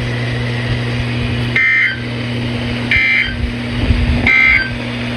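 Three short bursts of Emergency Alert System SAME data tones over NOAA Weather Radio, each about a third of a second long and a little over a second apart. This is the end-of-message code closing the broadcast alert. A steady low hum runs underneath.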